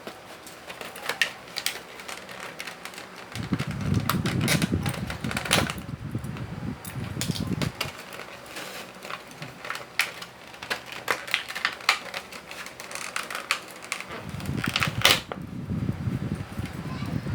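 Small box packaging being handled and opened by hand: scattered sharp clicks and rustles, with two longer stretches of low rubbing and handling noise, about three seconds in and again near the end.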